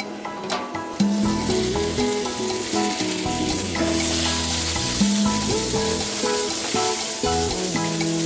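Hot oil sizzling in a nonstick wok as sliced tomatoes go in with frying minced garlic and are stirred with a wooden spatula. The sizzle starts abruptly about a second in and grows louder about four seconds in. Background music plays throughout.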